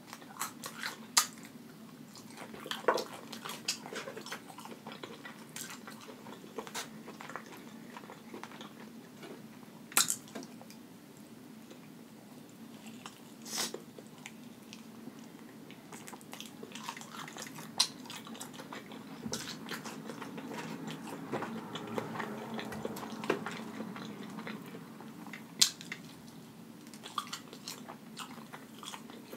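Close-miked chewing and biting of breaded fried chicken wings, with scattered sharp crunches.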